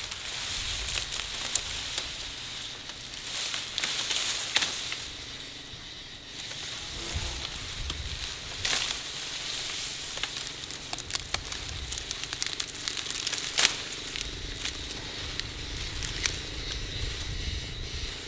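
Grass and vegetation rustling and crackling as it is cut and handled, with many sharp snaps and clicks of stalks scattered through.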